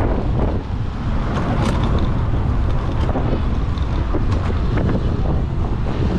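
Heavy wind buffeting on the microphone of a moving 72 V 5000 W QS-motor electric motorcycle, over a steady low rumble of the ride.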